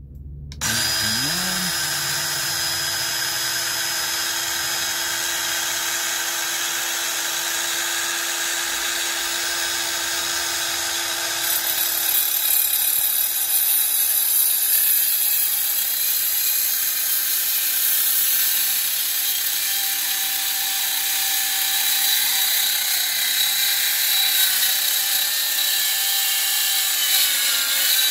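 Worx WorxSaw WX523L 20V cordless compact circular saw starting up about half a second in and running with a steady whine. From about twelve seconds in the blade cuts through a wooden board, and the sound gets louder and hissier to the end.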